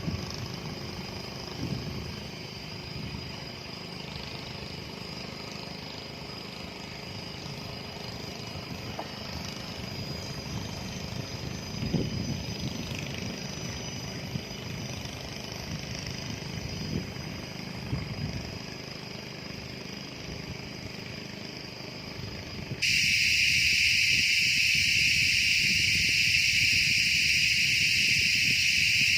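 A low engine-like rumble with a faint steady high whine. About three-quarters of the way through, a loud, steady, high-pitched insect drone starts suddenly and stays on.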